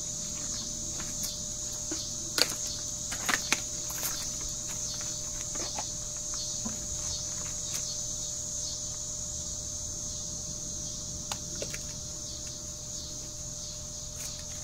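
Steady high-pitched insect chorus of crickets, with a few sharp clicks and knocks from hands working a small filter off the outboard motor, the loudest about two and a half seconds and three and a half seconds in.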